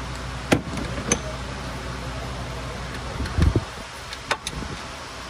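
A few sharp metallic clicks and knocks of hand tools and parts being handled around the starter in an engine bay, with one dull low thump about three and a half seconds in, over a steady low hum.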